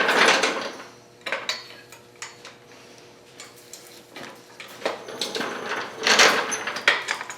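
Irregular knocks, clicks and scraping of metal workshop gear being handled, with a louder scrape at the start and another about six seconds in.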